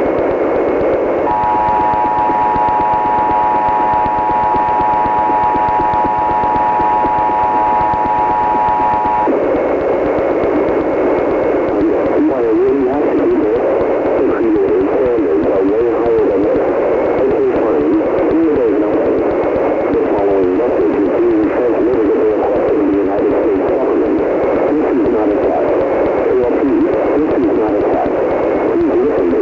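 Emergency Alert System attention signal, the steady two-tone alarm, sounding for about eight seconds over a constant hiss of radio static in thin, narrow-band radio audio. After it cuts off, the static goes on with a warbling, indistinct sound in it.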